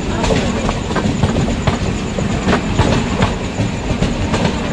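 A train running past, its wheels clattering fast and irregularly over the rail joints.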